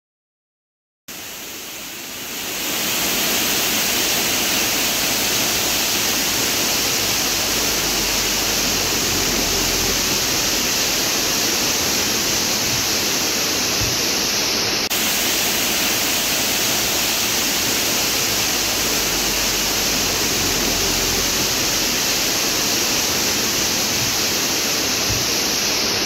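Small waterfall: a steady, loud rush of falling water that starts about a second in and swells to full strength over the next couple of seconds.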